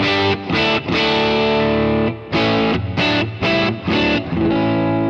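Electric guitar strumming a run of chords through a Kemper Profiler's '65 Deluxe Reverb V3' amp profile, the original unaltered tone played as a reference. The strokes come about every half second, with one chord left to ring for about a second.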